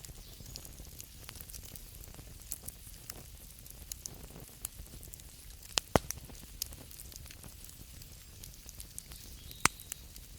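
Wood fire crackling: a steady low rumble and hiss with scattered sharp pops, two of them louder, about six seconds in and near the end.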